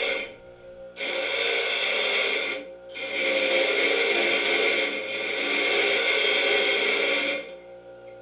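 Bench grinder's abrasive wheel grinding the end of a round steel rod that is turned against it to cut a chamfer: a harsh, even hiss in two passes, a short one and then a longer one of about four seconds, over the motor's steady hum. Near the end the rod comes off the wheel and only the hum of the spinning grinder remains.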